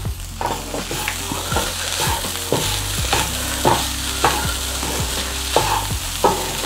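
Wooden spatula stirring shredded shark fry around a stainless steel frying pan in short scraping strokes, about two a second, over a steady sizzle of the fish frying dry with onion and grated coconut.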